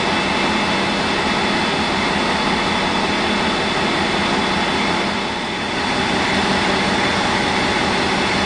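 ÖBB class 2143 diesel locomotive idling: a steady engine rumble with a constant high whine over it.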